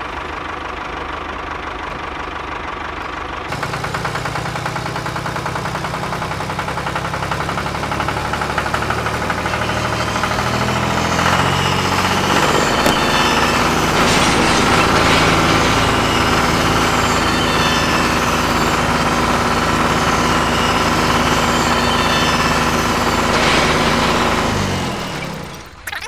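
A tractor engine running steadily. A deeper engine note joins about three and a half seconds in, the sound grows louder, and it fades out near the end.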